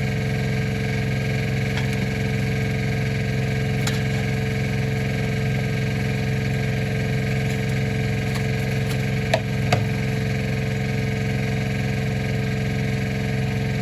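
An engine running steadily at an even pitch, with two light clicks a little past halfway.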